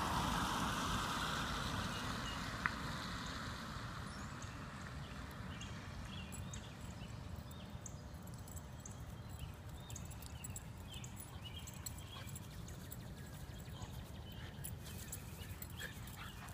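A car's tyres hissing past on wet pavement, fading away over the first few seconds, over a low steady outdoor rumble. Later come faint light ticks and patter as a puppy runs across the grass.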